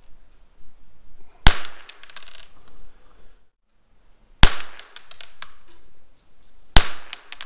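Three shots from a Rossi RS22 semi-automatic .22 LR rifle firing SK Rifle Match ammunition, about three seconds apart. Each is a sharp crack with a short echo, and a lighter click follows the first two.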